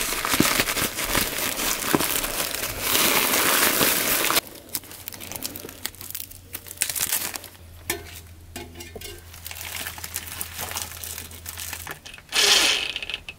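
Plastic outer jacket of an insulated flexible vent duct crinkling as it is cut and handled: dense and loud for the first four seconds, then quieter scattered rustling, with a short louder burst near the end.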